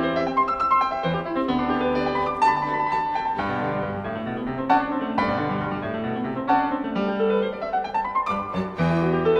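Instrumental background music led by piano, a steady stream of notes with quick upward runs near the end.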